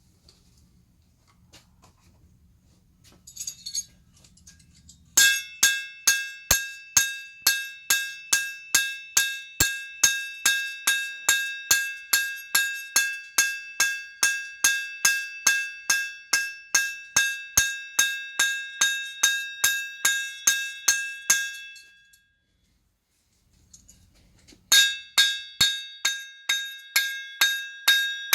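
Hammer blows on a bar of Zapp tool steel over an anvil during cold forging of a blade, a steady run of a little over two strikes a second. Each blow rings with clear, high metallic tones. The hammering starts after a few quiet seconds, pauses for about two seconds near the end, then picks up again.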